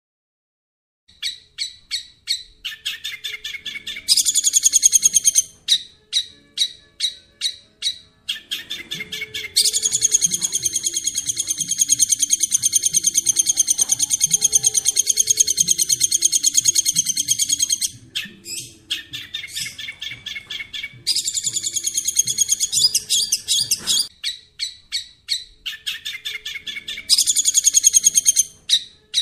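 Long-tailed shrike (cendet) song: rapid series of sharp, high chipping notes, several a second, alternating with dense, continuous chattering trills, the longest lasting about eight seconds from about ten seconds in. The bird starts singing about a second in.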